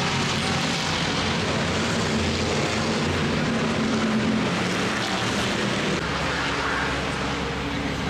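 Race car engine running steadily, a deep even hum with a broad hiss over it.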